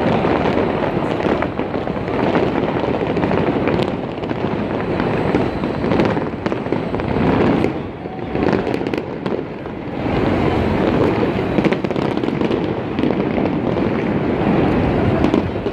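City fireworks display going off continuously, a dense rumble of bangs and crackles, easing slightly about eight seconds in.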